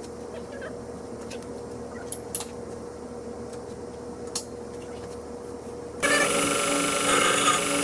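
A few light clicks and knocks as a used sanding belt is fitted to a 2x72 belt grinder. About six seconds in, the grinder comes in loud and steady, with a whine that holds one pitch, sanding small metal pieces clean for welding.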